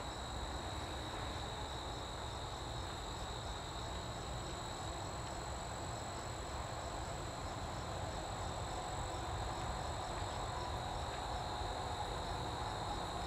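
Insects trilling steadily, a high, even chirring with a faint regular pulse, over a low steady rumble of outdoor background noise.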